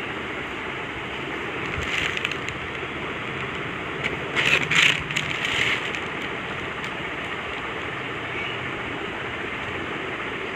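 Steady background hiss, with brief bursts of rustling about two seconds in and again around the middle, as bedding and clothes are moved around a person lying on a bed.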